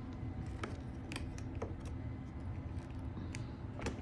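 A few light clicks and taps of plastic vacuum cleaner parts being handled and fitted back in place, with the vacuum switched off.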